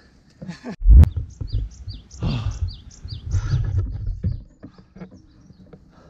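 A small songbird singing a quick series of short, falling chirps, starting about a second and a half in and lasting about two seconds. A loud low thump comes just before the chirps, with duller thuds and rustling from the hikers walking with packs and trekking poles.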